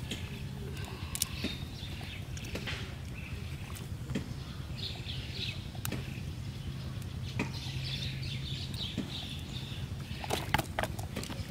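A cast net and wet grass rustling, with scattered clicks and slaps as fish are worked free of the mesh by hand and a quick run of sharp clicks near the end. Faint high chirping sits behind it, over a low steady hum that fades about nine seconds in.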